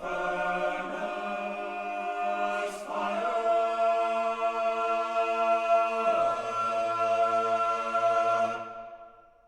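Men's tenor-bass choir holding a sustained final chord. About three seconds in, more voices join. About six seconds in, the basses come in on a low note beneath it. The chord is released near the end and dies away in the hall's reverberation.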